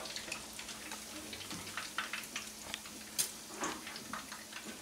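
Milk-and-egg-soaked bread slices (torrijas) frying in hot oil in a pan: steady irregular crackling and popping of the oil, with a sharper click a little past the middle as a metal slotted spatula turns and lifts a slice.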